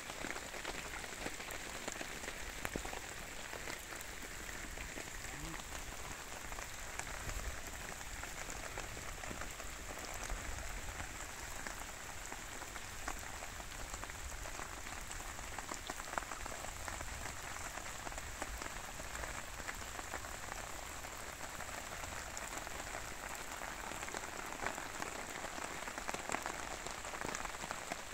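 Steady rain falling, a continuous hiss of drops with many small scattered ticks and no change in strength.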